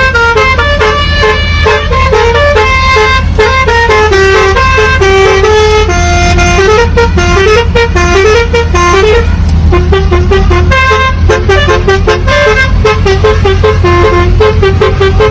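Basuri telolet musical horn on a bus playing a fast melody of short, changing horn notes, some sliding between pitches, over a steady low rumble.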